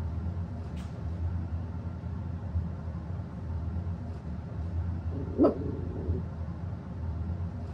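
A steady low hum, with a single short dog bark, rising in pitch, about five and a half seconds in.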